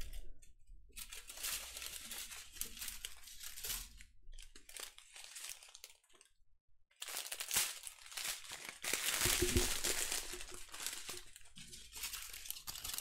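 Small plastic bags of diamond-painting drills crinkling as they are handled and laid out, in bouts with a brief pause about six seconds in.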